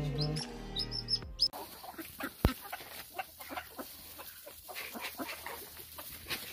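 A young bird peeping in high, repeated chirps over background music, cut off after about a second and a half. Then a flock of domestic ducks feeding in straw, giving short, soft calls, with a sharp click about two and a half seconds in.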